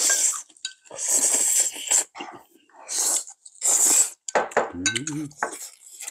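People eating hot dumpling hot pot with chopsticks: several short hissing slurps of hot food, then chopsticks and spoons clicking and clinking on bowls and dishes. A short hummed voice sounds about five seconds in.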